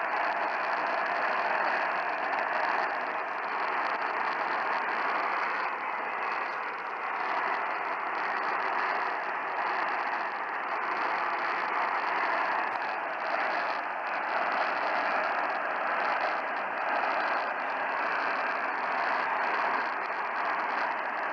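Steady static and hiss from a radio receiver tuned to a weak, distant AM station, with no speech coming through the noise.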